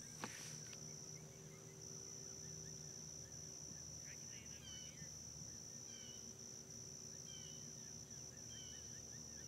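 Insects buzzing in one steady high-pitched note that breaks off briefly about a second in. From about four seconds on, a songbird adds short, repeated chirps about every second and a half.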